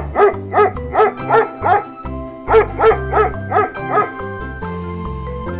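A dog barking: a quick run of about six barks, a short pause, then about five more, over children's background music.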